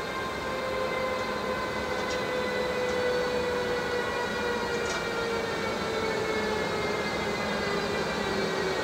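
Electric locomotives hauling a freight train through a station: a whine of several tones that fall slowly and together in pitch, over the rumble of the train.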